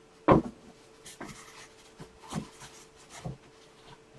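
Someone rummaging while searching for something: a sharp knock about a third of a second in, then a few softer knocks and rustles, over a faint steady hum.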